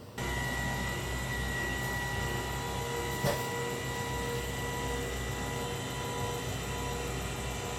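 Motorized spinal decompression table running: a steady electric hum with a thin high whine that starts suddenly, with one sharp click about three seconds in.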